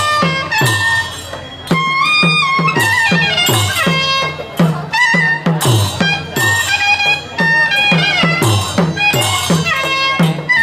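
Traditional Muay Thai Sarama music: a pi Java, a Thai oboe, plays a reedy, wavering melody over a steady beat of klong khaek drums, the music played live for the fighter's wai kru ram muay before the bout.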